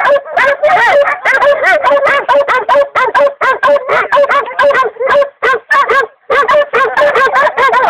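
Hunting dogs baying and yelping, a loud, rapid string of calls with only short breaks.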